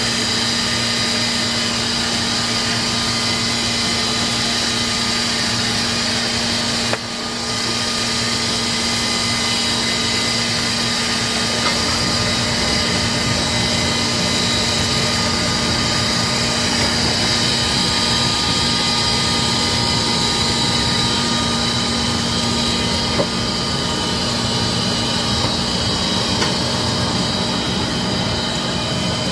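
Film laminating machine running steadily as printed sheets feed through its rollers: a continuous mechanical noise with a steady low hum and a high whine.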